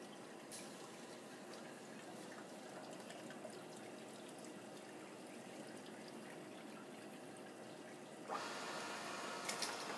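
Liquid bubbling and trickling in the open chemical tanks of a dip-and-dunk film processor. About eight seconds in, a louder steady machine noise with a held whine starts suddenly, with a few sharp clicks near the end.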